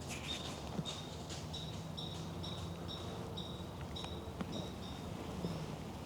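Outdoor woodland ambience: a short high chirp repeating evenly about twice a second, with a few sharp clicks and a faint steady low hum underneath.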